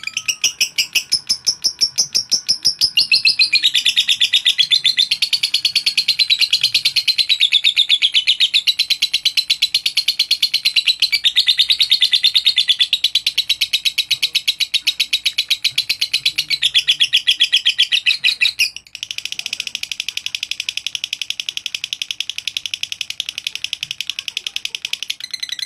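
Lovebird ngekek: one long, unbroken chatter of rapid, high chirps. It breaks off briefly about two-thirds of the way through, then carries on.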